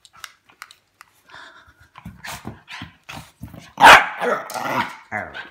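Puppy growling and yapping in a run of short calls, with one loud bark just before four seconds in. A few faint clicks come first, in the opening second.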